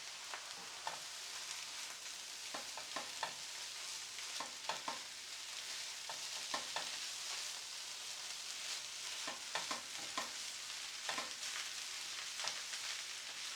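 Chicken fried rice sizzling in a hot pan, seasoned with soy sauce, with a steady hiss. A utensil stirs it, knocking and scraping against the pan in short irregular clicks.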